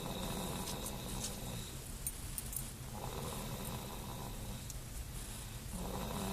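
Baby snoring: three slow snores, about three seconds apart.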